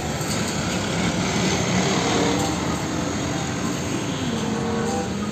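Diesel engine of a Hino 300 fuel tanker truck running, with tyre and road noise, as the truck drives past and away. The engine note dips and then climbs again about three and a half seconds in.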